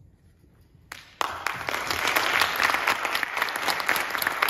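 Audience applauding; the clapping starts suddenly about a second in and carries on as dense applause.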